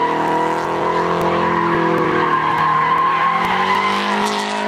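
Engine held at steady revs while the tyres squeal and skid through a sliding pylon turn.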